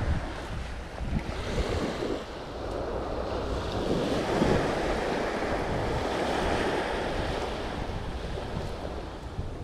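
Surf washing in on a sandy beach, swelling and easing, with wind buffeting the microphone.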